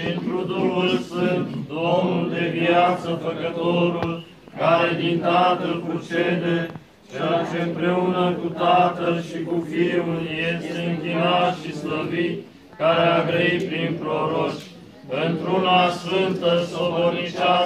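Eastern Orthodox liturgical chant sung by several voices, with held notes, in phrases separated by short pauses for breath.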